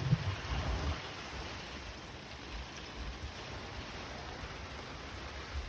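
Steady rain falling, with a low rumble in the first second.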